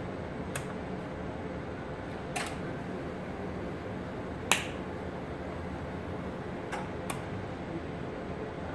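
Sharp single clicks from a capacitor-discharge and TIG welding machine while its front-panel controls are worked, about five spread irregularly, the loudest near the middle, over a steady low hum.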